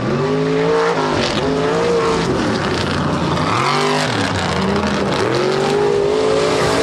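Mega truck engines running hard at high revs during a head-to-head run, the engine note climbing in pitch and falling back several times.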